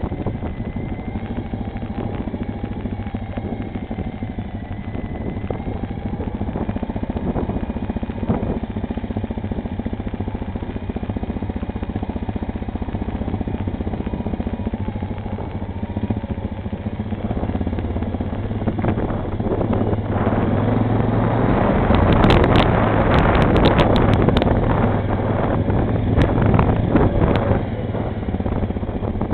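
ATV engine running steadily as the quad is ridden. About two-thirds of the way through it grows louder for several seconds, with a run of sharp rattling knocks.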